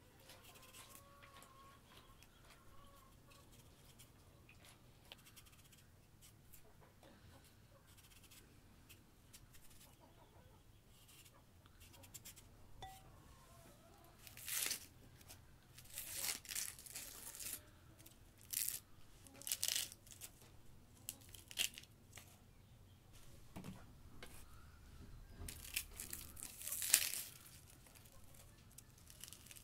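Dry, papery onion skin crackling and tearing as an onion is peeled with a knife, in short irregular bursts through the second half. The first half is quiet.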